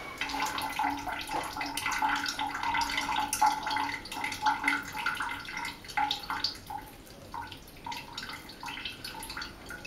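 Water from a handheld shower head running and splashing in a bathtub, with dripping; it is loudest at first and grows fainter after about five seconds.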